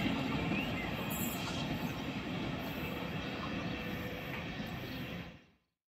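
Regional electric passenger train rolling along the rails as it moves away, with a steady rumble of wheels. The sound cuts off abruptly near the end.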